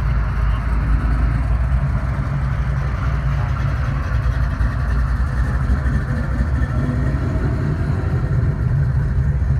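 Classic American muscle cars, a Plymouth 'Cuda and Chevrolet Camaros, rolling slowly past one after another with their engines idling in a steady, deep exhaust note.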